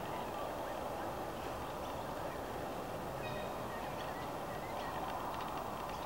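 Waterfowl calling on open water, over a steady background din, with faint short chirps of small birds.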